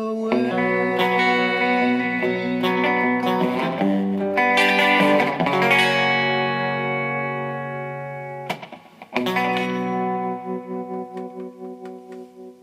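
Guitar music with effects, the song's closing chords. After a run of strummed chords, a last chord is struck about nine seconds in and left ringing, fading out with a wavering level.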